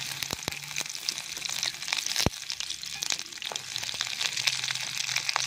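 Cut okra sizzling and crackling in hot oil in a steel kadai, just added along with curry leaves. Many sharp pops run throughout, with one louder pop about two seconds in.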